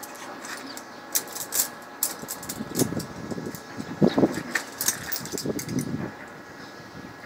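Steady mechanical hum with a scatter of sharp clicks and rattles, and a few low thuds in the middle.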